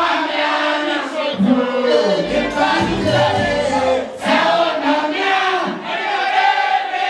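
Many voices singing together over live music, like a crowd singing along, with the bass dropping out for much of the time.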